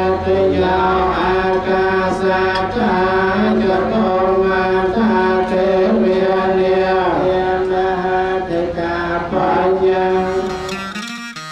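A man chanting Pali blessing verses into a microphone in long, held, sung tones with slow glides in pitch. Right at the end the chant cuts to plucked-string music.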